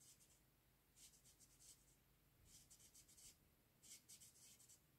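Very faint scratching of a felt-tip marker drawing short strokes on paper, in a few brief runs.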